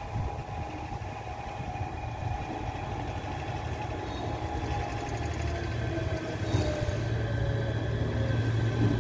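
Electric locomotive E68013 approaching slowly while shunting: a steady electric whine of several tones, one falling in pitch over the second half, over a low rumble that grows louder as it nears.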